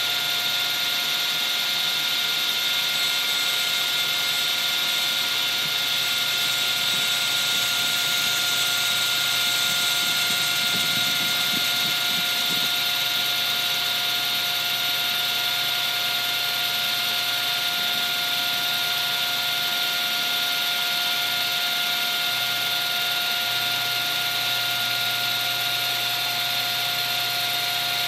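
Table saw running with a steady whine as a drill-spun wooden disc is shaped against its blade into a spherical curve.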